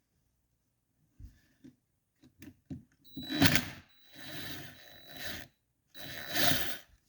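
Tools working the stator bolts on a Honda TRX250R engine: a few light clicks and knocks of metal, then three rough bursts about a second long each, the loudest about halfway in.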